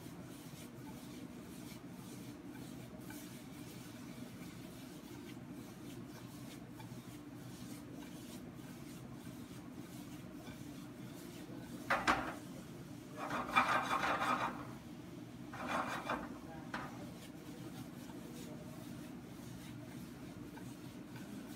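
A stainless steel frying pan is shaken and slid on the iron grate of a gas range, giving a sharp knock followed by three short scraping rasps a little past halfway. A steady low hum of the commercial kitchen runs under it.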